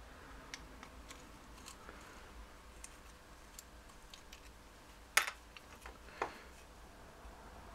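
Screwdriver working the small screws out around the edge of a metal ignition trigger housing: faint scattered clicks and scrapes of tool on screw and casing, with a sharper click about five seconds in and another about a second later.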